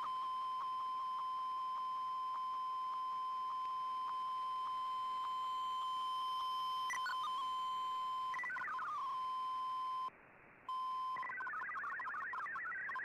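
Digital-mode shortwave radio signal from an Icom IC-R8600 receiver: a steady tone near 1 kHz with regular faint ticks, the tail of an MFSK picture transmission, under a fainter high steady whistle. About 8 seconds in there is a short falling sweep, and near 10 seconds the signal drops out briefly. About 11 seconds in, warbling multi-tone MFSK data begins.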